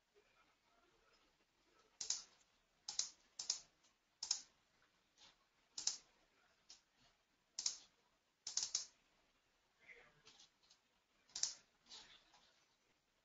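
Faint, irregular clicking of a computer keyboard and mouse: a dozen or so short, sharp clicks spread unevenly, some in quick pairs.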